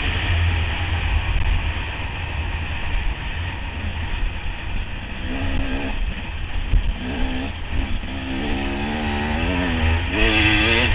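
Enduro motorcycle engine under way at speed, heard from an onboard camera with heavy wind buffeting on the microphone. The engine note is mostly buried in wind noise at first, then rises and falls several times over the second half as the revs change.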